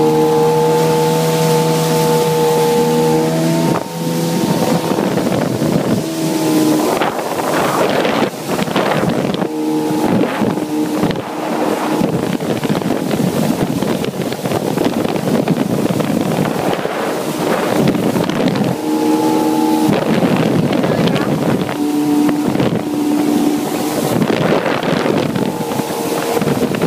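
Jet ski engine running as the craft cruises, its tone shifting about four seconds in and then rising and falling. Heavy wind buffets the microphone, and water rushes past the hull.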